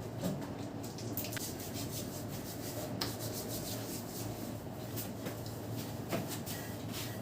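Hands rubbing over a person's head and hair during a massage, with many short, crisp crackles and scratches, over a steady low hum.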